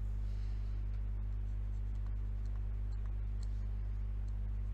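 Faint scratches and light taps of a stylus writing on a tablet, over a steady low electrical hum.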